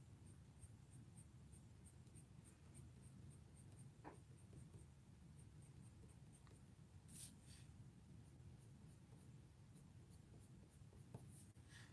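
Faint, rapid scratching of a Prismacolor colored pencil on paper: short feathering strokes at about four a second, with a slightly heavier stroke about seven seconds in.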